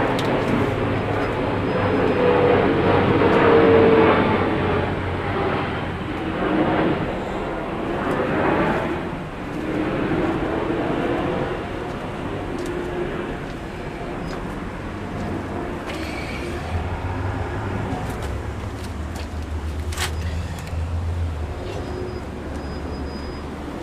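Road traffic: vehicles passing with rising and falling swells of tyre and engine noise, then a steady low engine hum for several seconds near the end, with a sharp click partway through.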